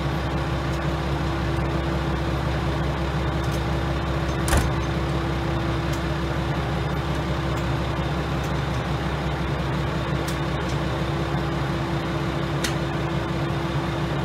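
KiHa 120 diesel railcar engine idling at a standstill: a steady drone with a constant hum. There is one short sharp knock about four and a half seconds in.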